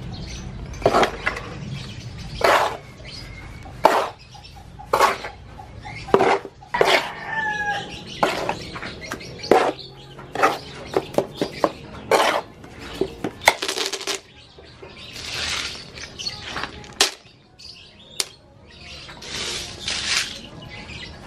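Cement being mixed by hand in a concrete tray: a metal scoop and a small trowel scraping through the mix and knocking against the tray, in many short sharp clinks and some longer scrapes.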